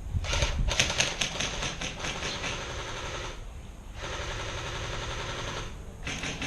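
Airsoft rifle firing on full auto: rapid clattering strings of shots in three bursts, a long one of about three seconds, a shorter one after a brief pause, and another starting near the end.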